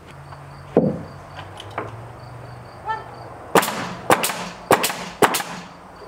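Hammer driving nails into rough-sawn lumber siding: a run of sharp strikes, some in quick pairs, roughly two a second, starting a little past the middle. A single dull thump comes about a second in.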